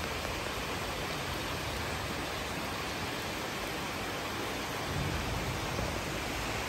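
Steady rain falling as an even hiss, with a brief low rumble about five seconds in.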